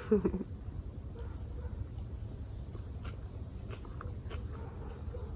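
Crickets chirping steadily in a high, evenly pulsing trill.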